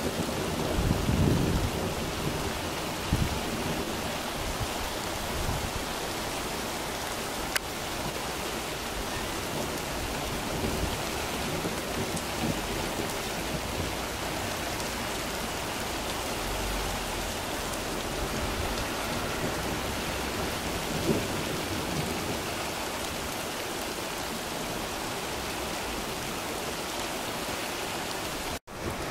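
Heavy rain pouring onto a tarmac road and pavement, a steady dense hiss. Brief low rumbles come near the start and again about two-thirds of the way through.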